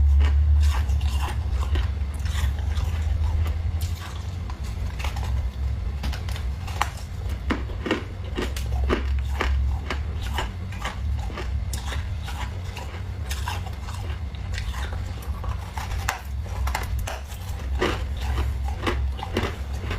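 Thick, crunchy freezer frost being scraped and broken, a run of irregular crackles and crunches over a steady low hum.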